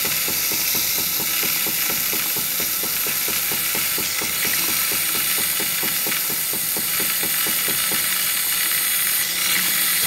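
Jura S8 espresso machine dispensing steamed milk through its fine foam frother, with the frother lever turned down for steamed milk rather than foam. It makes a steady steam hiss over a rapid, regular pulsing from the machine.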